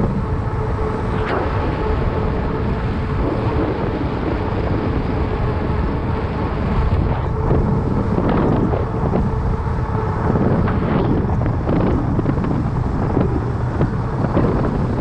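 Wind buffeting the microphone of a bike-mounted camera while a fat bike rolls along a paved path, with a steady low rumble from the riding.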